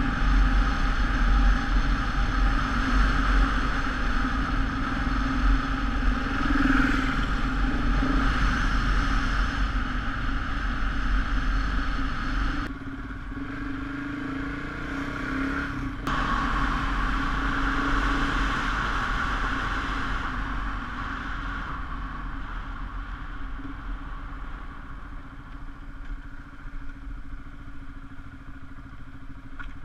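KTM 690 Enduro R's single-cylinder engine running steadily as the bike rides along, with wind rumble and road noise. The sound dips for a few seconds a little under halfway through and is quieter over the last third.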